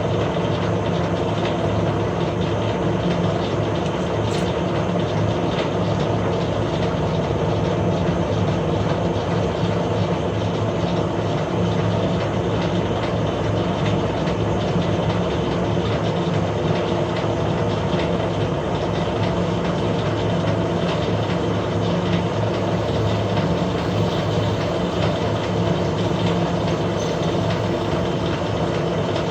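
Metal lathe running steadily with an even mechanical hum, typical of a lathe cutting an internal thread.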